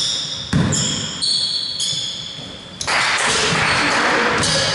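A basketball bounced once, hard, on the hardwood court floor about half a second in, followed by high squeaking tones. Near the end there is a loud stretch of noise lasting about a second and a half as players go for the rebound under the basket.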